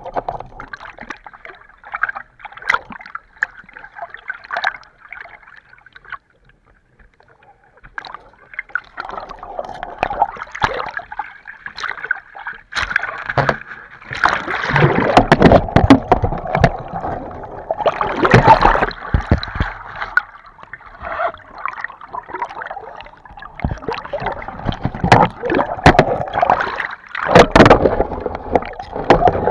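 Water gurgling and sloshing close to the microphone, with many scattered clicks and knocks. It goes almost quiet for a couple of seconds, then grows louder and busier from about halfway through.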